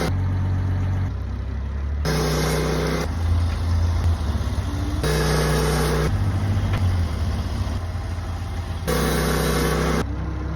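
A sawmill's engine running while it saws through a large ponderosa pine log. The sound switches abruptly every second or two between a steady, higher-pitched run and a lower, rougher one.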